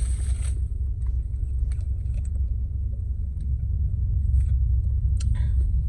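Steady low rumble inside a parked car, with a few faint clicks and a short rustle near the end.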